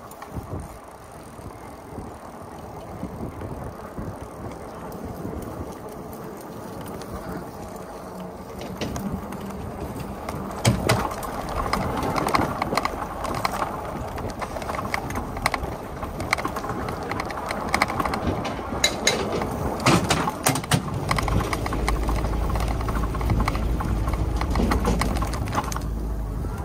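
Riding noise from an e-bike on a paved trail: a steady hiss of tyres and air that grows louder about ten seconds in, with scattered sharp clicks and rattles, and low wind rumble on the microphone in the last few seconds.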